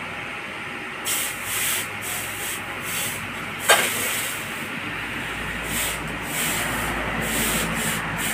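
Hand-forged iron cleaver blade scraped back and forth across a sharpening stone, repeated scraping strokes about two a second, with one sharp metallic clink about midway.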